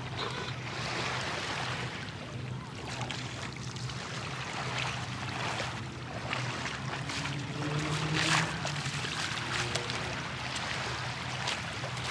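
Water lapping and splashing in short irregular splashes, over a steady low hum.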